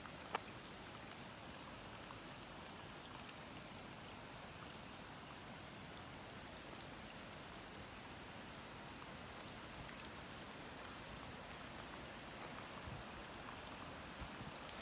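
Light rain falling, a faint steady hiss with scattered single drop ticks, one sharper tick just after the start.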